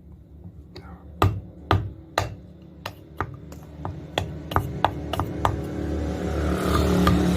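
Hammer blows on metal: three heavy strikes about half a second apart, then a run of lighter, quicker blows, about three a second, some with a short ring. A steady low hum grows louder over the last couple of seconds.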